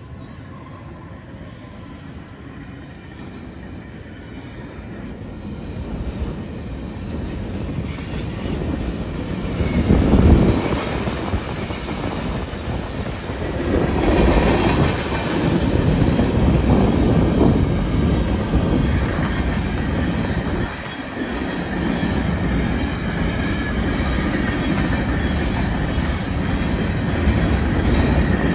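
Union Pacific freight train passing close by at speed: a steady rumble of wheels on rail with clattering, quieter at first and growing louder about ten seconds in.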